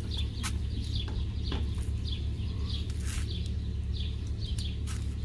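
Birds chirping, short falling notes repeating about twice a second, over a steady low hum, with a few scattered sharp clicks.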